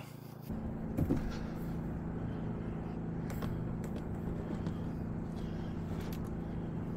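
Dinking DK2300i-M inverter generator engine running steadily at eco-throttle idle with no load on it. The hum comes in about half a second in, and a few faint clicks sound over it.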